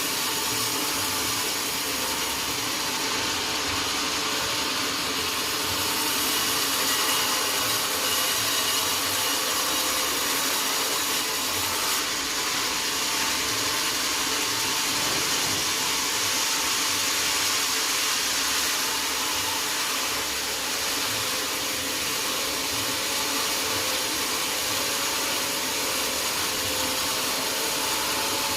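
Sawmill saw running steadily as it cuts through oak, a dense even noise with a faint steady whine and no pauses.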